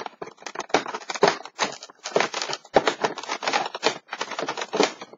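Cardboard advent calendar packaging rustling and scraping in quick, irregular crackles as a pencil is worked out of a tight compartment.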